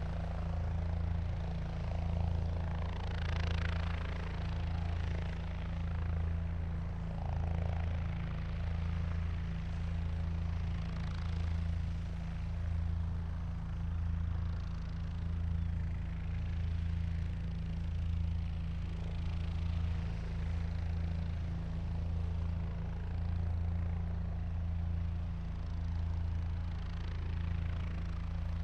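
Helicopter running steadily: a continuous low drone with slow, regular swells in loudness and a hiss of turbine and rotor noise above it.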